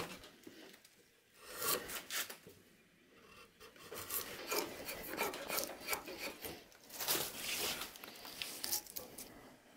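Drawknife shaving a wooden handle blank, a run of pulled strokes with the blade scraping and peeling off curls of wood. There is one short stroke early, then a longer series of strokes with brief gaps between them.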